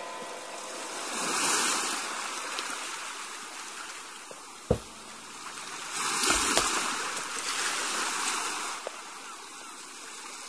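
Sea waves washing onto a pebble beach, surging and drawing back in slow swells. A single sharp knock sounds about halfway through.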